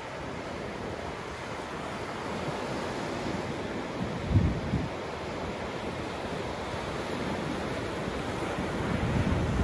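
Sea surf breaking and washing up a sandy beach, a steady rushing of water. Wind buffets the microphone, with a short low gust about halfway through.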